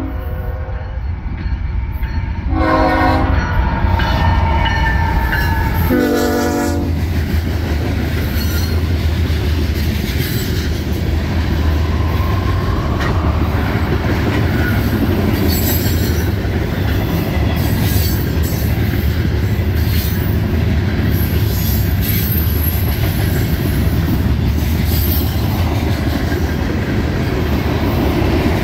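Diesel freight locomotive's air horn sounding a chord, a blast ending just after the start and two shorter blasts at about 3 and 6 seconds, then the locomotives and cars rolling past in a steady loud rumble with wheel clicks and occasional high wheel squeals.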